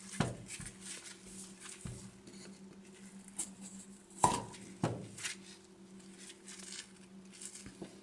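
Flat-blade screwdriver scraping and picking at the brittle charcoal block from a used refrigerator water filter: scattered light clicks and scrapes, with two sharper clicks about four and a half seconds in. A faint steady hum runs underneath.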